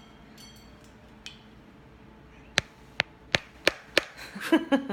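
Five sharp taps or knocks about three a second, then a brief pitched vocal sound near the end.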